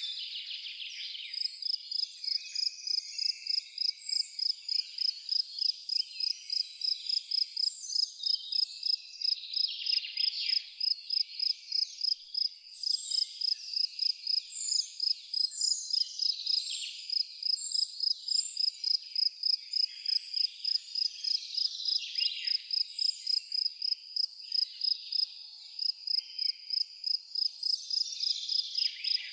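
A cricket chirping in a steady high-pitched pulse, about two to three chirps a second, pausing briefly twice. Scattered bird calls and other insect chirps sound behind it.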